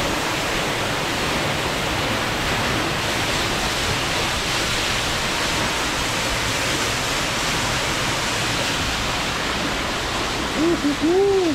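Waterfall pouring steadily into a rock pool, an even rushing roar of water. A brief voice breaks in near the end.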